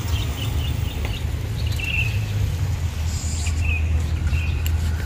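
Outdoor street ambience: a steady low rumble with small birds chirping several times.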